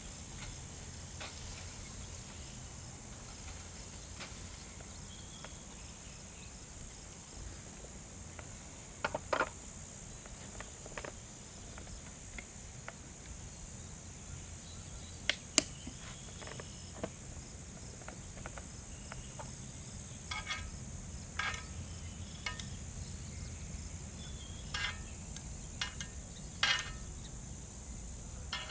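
Crickets chirping in a steady high trill, with scattered sharp clicks and knocks, most of them in quick succession in the last third.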